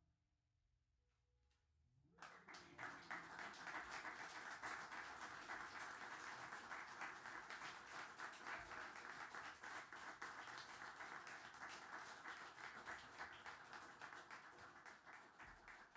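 Audience applauding: the clapping starts about two seconds in after a near-silent pause, holds steady, and begins to fade near the end.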